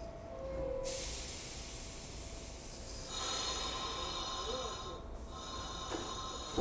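R46 subway train at the platform: a falling two-tone door chime ends in the first second, then a loud hiss of air starts about a second in. About three seconds in, a steady whine of several high tones joins the hiss just before the train pulls out.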